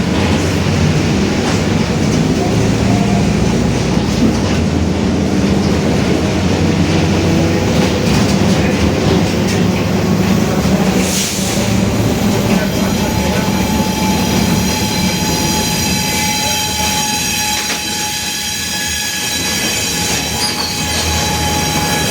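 Mercedes-Benz OF-1721 BlueTec 5 bus under way, its four-cylinder diesel running steadily with a deep drone, and the differential growling. About halfway through, a steady whine joins in.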